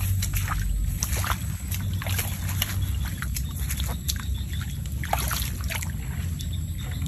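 Bare feet splashing and squelching through shallow muddy water and wet grass, then water sloshing as hands grab a bamboo tube trap lying in it; many short splashes over a steady low rumble.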